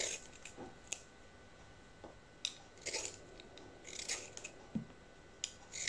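Hand-held vegetable peeler scraping strips of skin off a broccoli stalk: a series of short, irregular scrapes.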